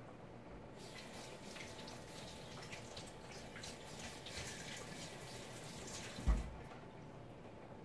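Water running from a kitchen tap for about five seconds, then a single thump as it stops.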